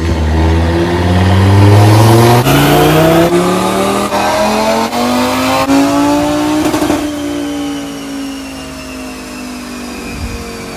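Audi turbocharged 2.5-litre five-cylinder engine on a chassis dyno at full throttle, revs climbing steadily through a pull for about six and a half seconds. A short burst of noise comes at the top, then the revs fall slowly away as it coasts down.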